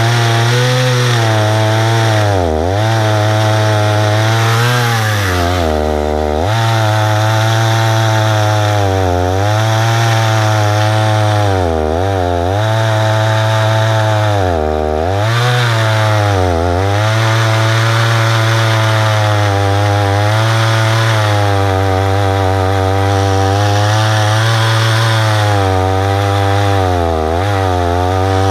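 Husqvarna 288 two-stroke chainsaw running at full throttle on an Alaskan chainsaw mill, ripping a plank lengthwise through a tulip poplar cant. The engine note sags briefly in pitch every few seconds under the load of the cut, then recovers.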